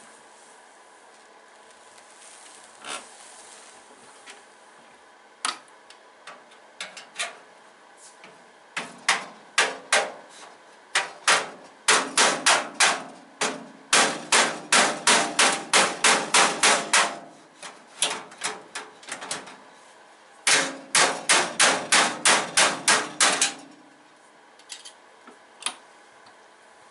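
Hammer blows on a metal toolbox, a few scattered knocks and then two fast runs of sharp strikes, about three or four a second, used to work a stubborn drawer loose from its slides.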